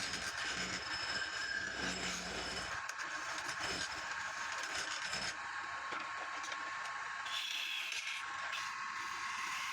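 Wood lathe running while a turning tool scrapes and cuts the spinning wood, a steady rasping hiss. The low motor hum drops away about three seconds in, and the cutting sound changes again about five seconds in.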